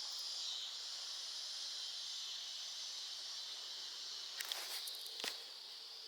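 Steady, high-pitched insect chorus of crickets or cicadas, with a couple of faint clicks near the end.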